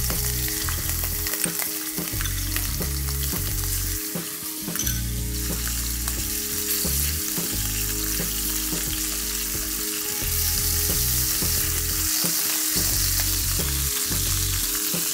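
Shrimp frying in vegetable oil in a stainless-steel wok: a steady sizzle, a little louder from about two-thirds in, with a spatula stirring and pushing the shrimp around the pan.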